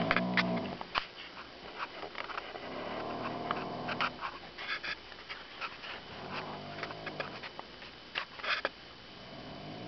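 A person snoring, each inhale a pitched, buzzing, horn-like snore, repeating about every three and a half seconds, with small clicks between them.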